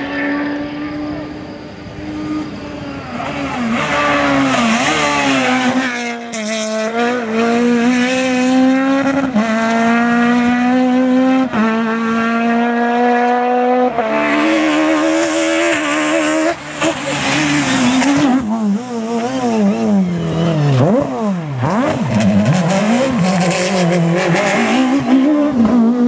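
Peugeot 306 Maxi rally car's naturally aspirated four-cylinder engine run hard, held at high revs with a few quick gear changes. In the later part the revs swing rapidly up and down as the car brakes and shifts down for corners. Several passes are cut together.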